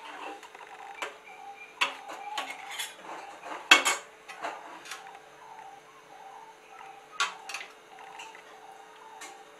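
A steel spoon clinks and scrapes against a steel kadhai and small steel bowls as halwa is ladled out. The clinks come at irregular intervals, and the sharpest one falls a little under four seconds in.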